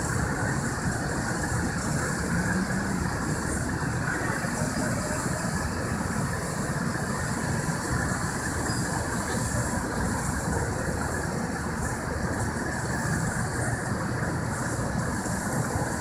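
Heavy diesel engines running with a steady low rumble: the mobile crane hoisting a cooling-tower section, with the trucks below.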